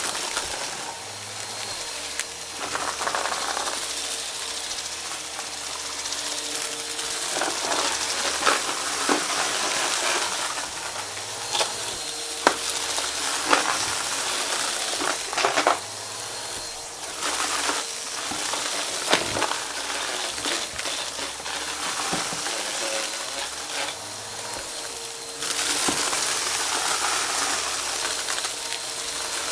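Vacuum cleaner running with a steady hum while it sucks up a crunchy mess-test mix, the debris crackling and clicking sharply as it is pulled in.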